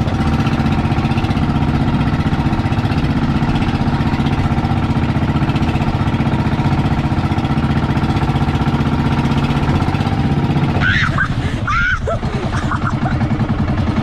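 Engine of a motorized outrigger boat running steadily underway, a constant drone with even harmonics.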